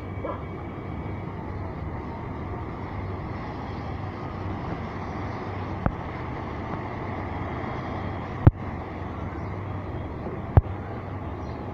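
Steady outdoor background rumble and hiss with a low hum, broken by three short sharp clicks: a small one about six seconds in and two louder ones later.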